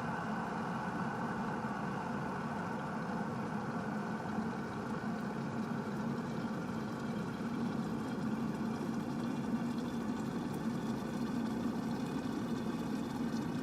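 Glass electric kettle heating water, a steady hum and hiss with no break.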